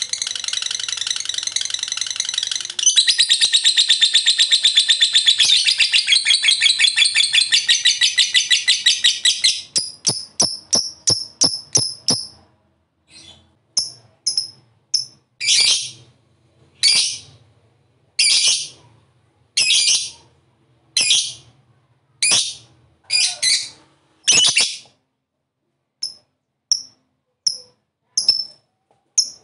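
Lovebird singing a long, rapid chattering trill (the "ngekek"), unbroken for about ten seconds and louder from about three seconds in. It then breaks up into separate sharp chirps and short calls, about one a second.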